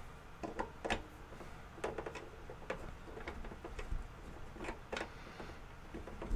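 Scattered light clicks and taps, about seven in all, from the metal and plastic parts of a Crane Plus laptop stand being handled and fitted together by hand. A few of the taps ring briefly.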